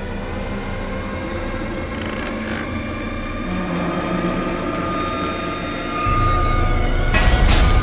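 Dark, eerie ambient soundtrack: a drone of held tones over a low rumble, the rumble growing deeper and louder about six seconds in, with a short harsh noisy swell near the end.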